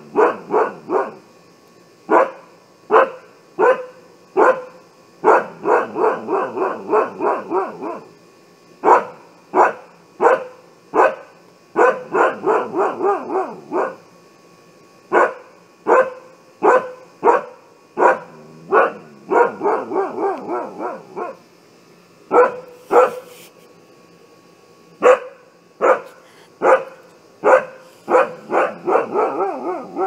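Siberian husky barking an alarm: single barks spaced about a second apart, broken up four times by runs of rapid barks at about four a second.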